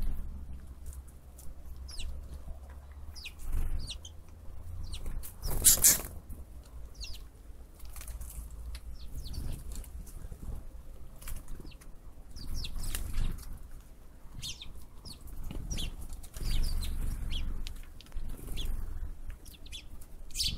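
Outdoor field ambience: small birds calling with many short, high chirps throughout, over a low wind rumble on the microphone. About six seconds in, a brief loud rush stands out above the rest.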